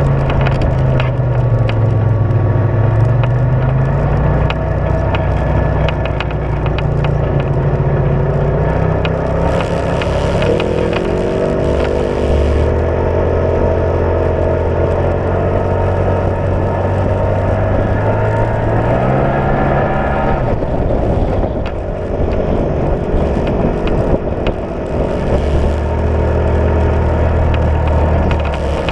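Side-by-side UTV engine running under way, with tyres crunching over gravel and small stones ticking. The engine note climbs about ten seconds in, holds, then drops back near twenty seconds.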